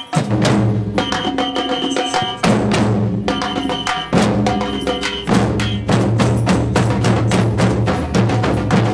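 Street percussion ensemble playing: surdo bass drums struck with mallets, with djembes and snare drums, beat a dense driving rhythm, and a sustained ringing higher tone sounds in stretches.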